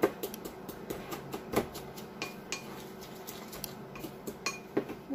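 A metal spoon taps, clinks and scrapes against a small glass bowl as it crushes dried herbs, in irregular clicks with a few brief glassy rings. There are sharper knocks at the start, about a second and a half in, and near the end.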